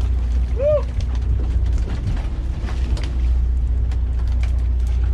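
Sportfishing boat's engine rumbling steadily while the boat drifts. Scattered clicks and knocks from the deck and gear, and a short cry about a second in.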